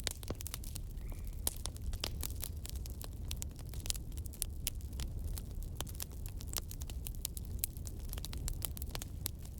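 Burning firewood crackling, with many quick, irregular snaps over a steady low rumble.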